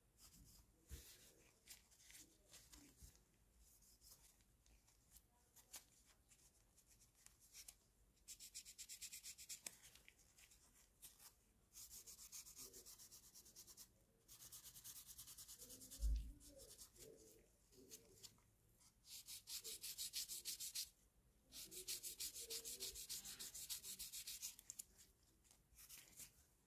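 Faint hand sanding of a plastic model kit part: several spells of quick back-and-forth strokes a few seconds each, with a single dull thump about halfway through.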